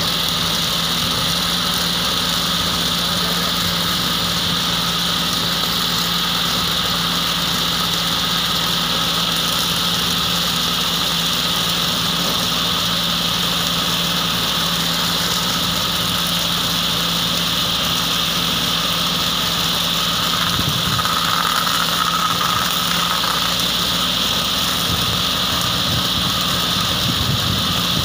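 Small farm tractor's engine running steadily while it drives a grass mulching machine through vineyard grass. The sound is constant, with a brief rougher, louder patch a little past two-thirds of the way through.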